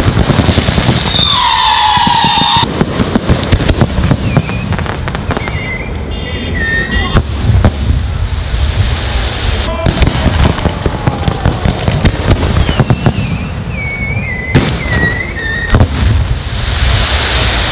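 Fireworks display: rapid bangs and crackling from ground-fired comets and aerial shell bursts. A loud whistle sounds about a second in, and shorter wavering whistles come near the middle and again later.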